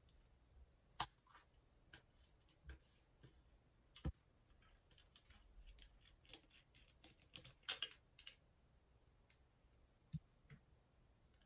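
Plastic foaming hand soap pump bottle being handled, pumped and its pump head unscrewed: scattered sharp plastic clicks and taps, with a quick run of clicks about eight seconds in.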